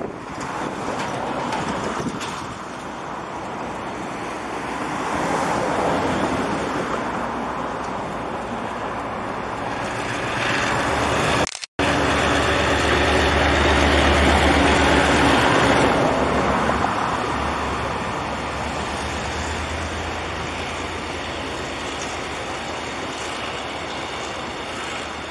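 Taiwan Railways R139 diesel locomotive hauling a train of electric multiple-unit cars approaches and passes. The engine's low drone is loudest just after the middle as the locomotive goes by, then the run of the trailing cars fades slowly. The sound cuts out briefly just before the middle.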